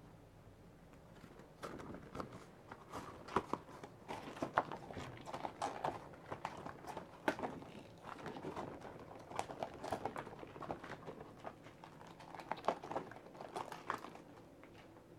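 Long black elbow-length latex gloves being worked onto oiled arms: irregular crinkling of the rubber with sharp snaps and smacks, starting about a second and a half in and easing off near the end.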